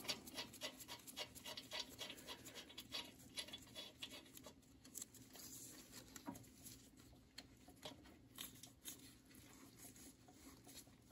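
Faint irregular clicks and light rustling of gloved hands handling a toothed drive belt and turning the motor's adjuster bolt by hand, over a faint steady hum.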